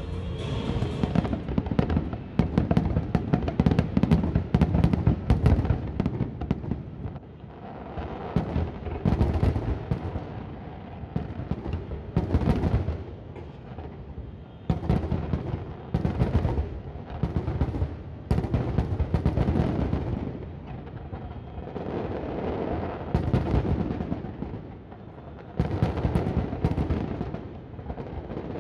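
Fireworks display: a rapid run of bangs and crackles that swells and fades in waves every few seconds.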